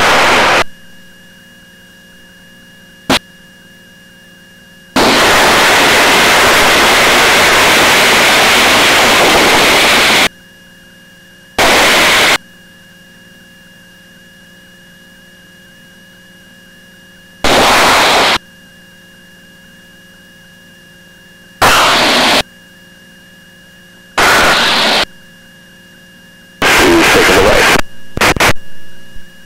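Aircraft radio and intercom feed: a low steady electrical hum, broken six times by loud rushing static-like noise that switches on and off abruptly, as a microphone keys open. The longest burst lasts about five seconds, and there is a single sharp click about three seconds in.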